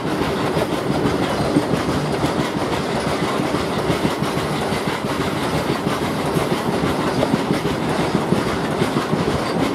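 Loaded BOXN open freight wagons rolling past close at speed: a steady rumble with rapid clickety-clack of the wheels over the rail joints.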